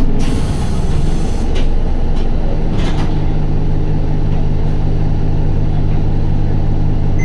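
Interior running sound of an Isuzu Erga city bus: its four-cylinder turbo diesel runs at a steady engine speed with an even low drone. A short hiss of air comes in about the first second, and there are a few light clicks.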